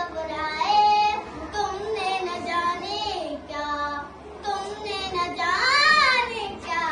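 A young girl singing verses of a song, her pitch bending on held notes, with a long wavering note near the end.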